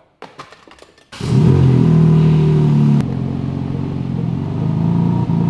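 BMW M3 G80 Competition's twin-turbo straight-six engine running at a steady idle, coming in loud about a second in after a few faint clicks.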